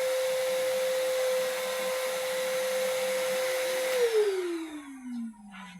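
Vacuum cleaner running steadily with a high motor whine, then switched off about four seconds in, the whine falling in pitch as the motor spins down.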